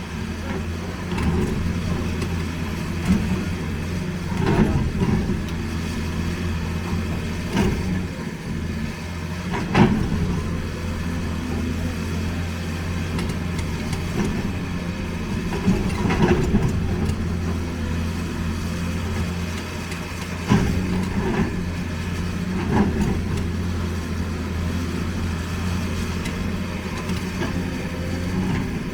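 Heavy diesel machinery engine running steadily, with occasional short knocks and clunks scattered through the sound.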